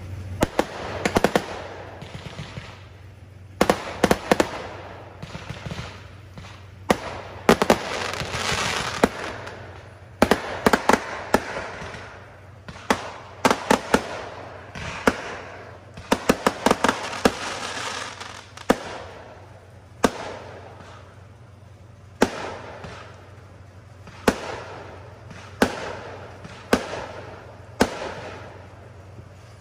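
Aerial fireworks going off: sharp bangs and rapid volleys of pops, each followed by crackling, coming in clusters every second or two.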